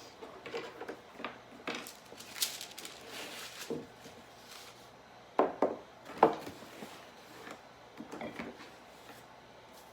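Kitchen handling sounds while making biscuit dough: scattered knocks and clatters of utensils and dishes, with two louder knocks about five and six seconds in.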